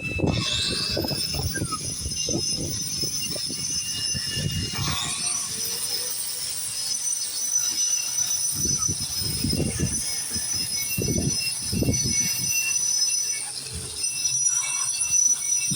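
Electric grinder spinning up in the first second, its pitch rising, then running with a steady high-pitched whine, with irregular low rumbles from the disc working the painted concrete foundation.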